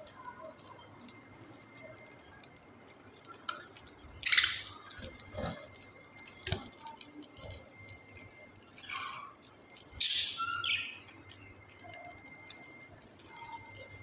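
Budgerigars chirping in short, scattered calls, with two louder high-pitched calls about four seconds in and near ten seconds. A couple of sharp clicks fall between them.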